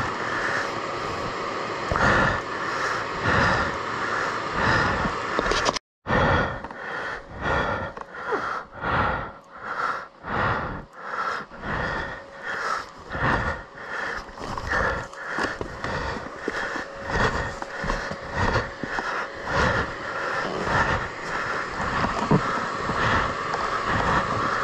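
A rider breathing hard close to the microphone, in ragged gasps about one or two a second, with a motorcycle engine running underneath.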